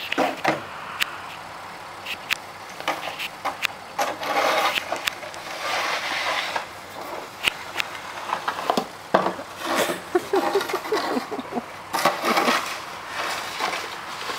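Snow shovel scraping across a paved driveway in repeated pushes of a second or so, with sharp clicks and knocks of the blade between strokes.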